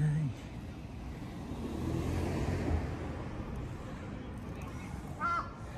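A vehicle going past: a low rumble that swells through the middle and fades again. Near the end comes a short animal call.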